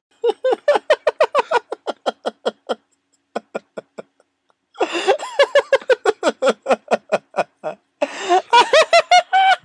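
People laughing hard, in quick repeated 'ha-ha' bursts, in three bouts with a short lull about three to four seconds in.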